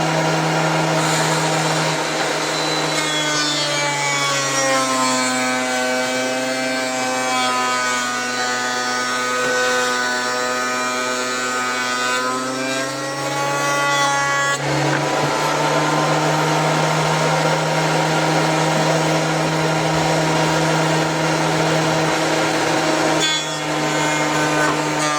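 Makita 2012NB bench thickness planer running. Its motor pitch drops about four seconds in as a board is fed through and the cutterhead cuts under load, then climbs back near 13 s. After an abrupt change around 15 s it runs on at high pitch, with a short dip near the end.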